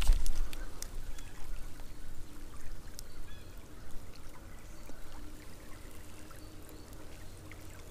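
Small creek running and trickling, with faint scattered ticks, and a low rumble on the microphone at the start.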